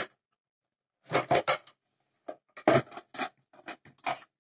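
Short rubbing and scraping noises in small clusters, the loudest about a second in and again near three seconds.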